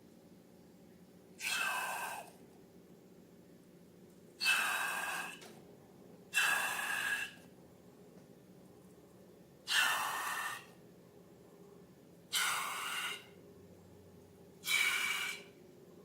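Six short breathy rushes of air, each about a second long, a few seconds apart.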